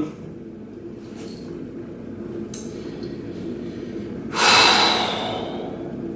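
A person's loud, noisy breath about four seconds in, fading over a second, over a low steady room hum.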